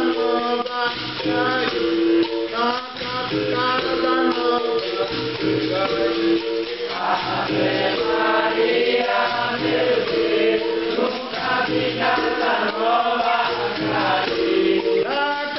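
Capoeira roda music: several voices singing together over the jingle of a tambourine-like pandeiro and a shaken rattle.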